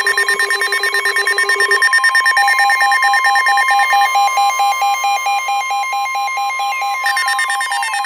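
Several weather alert radios sounding their alarms at once for a Severe Thunderstorm Warning: a steady warning tone under rapid pulsing beeps. A lower beep pattern stops about two seconds in and a higher one takes over, and a falling sweep comes near the end.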